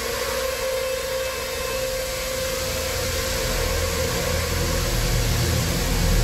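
A steady, hissing, rumbling drone with one held mid-pitched tone; a deep rumble swells and grows louder in the second half.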